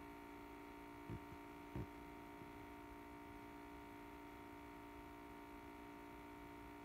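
Faint steady hum made of a couple of held tones, one low and one higher, over a quiet background. Two soft thumps come about a second and just under two seconds in.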